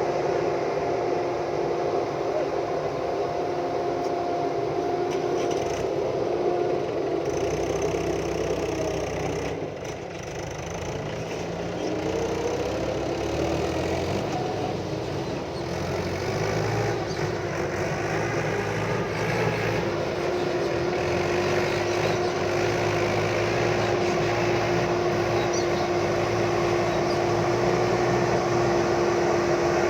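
JCB backhoe loader's diesel engine running steadily with a pitched whine, which drops and glides back up about ten seconds in as the engine and hydraulics change load, then holds steady again.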